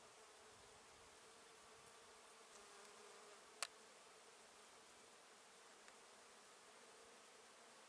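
Faint, steady buzzing of bees working a flowering almond tree, with a single sharp click about three and a half seconds in.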